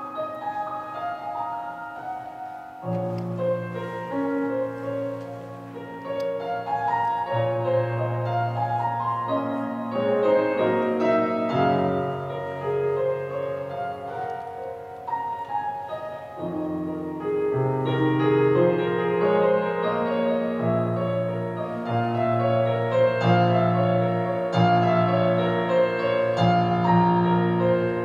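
Grand piano played solo in a flowing, many-noted passage. Low bass notes come in about three seconds in, and the playing grows louder toward the end.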